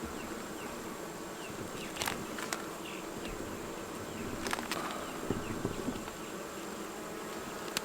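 Honeybees buzzing steadily around an open hive during a frame inspection, with a few sharp clicks.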